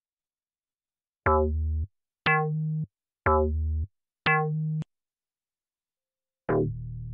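Siberia 2 FM software synthesizer playing bass presets: four short bass notes about a second apart, alternating between a low and a higher pitch, each with a bright attack that quickly dulls. A longer held bass note starts near the end.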